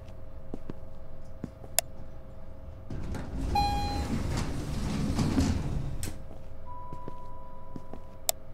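An elevator chime sounds about three and a half seconds in, followed by the elevator doors sliding open with a low rumble over a steady hum. Sharp clicks come before and after, and a thin steady tone sounds for about a second and a half near the end.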